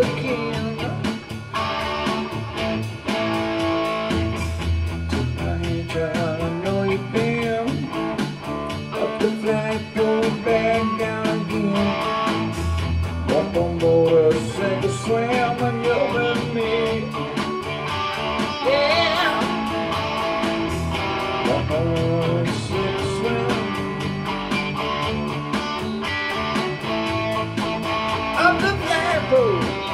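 Electric guitar playing an instrumental break in a blues-rock song, with bent notes sliding up and down, over a low, steady backing.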